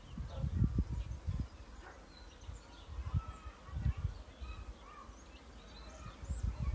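Small birds chirping and twittering in short, scattered calls, over irregular low rumbles that come and go in bursts.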